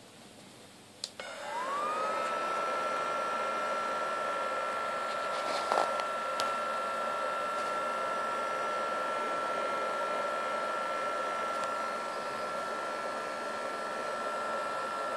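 BioLite wood stove's built-in fan switching on with a click about a second in. Its whine rises quickly and then holds steady over a rushing of air that is being blown into the fire burning in the chamber. A brief knock comes about six seconds in.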